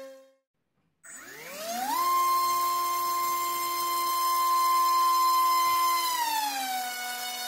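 Racerstar BR2205S 2300KV brushless motor spinning a DALPROP T5040 three-blade propeller on a 3S battery: after a short silence it spools up about a second in with a steeply rising whine. It holds a steady high-pitched whine for about four seconds, then drops to a lower pitch near the end as it slows.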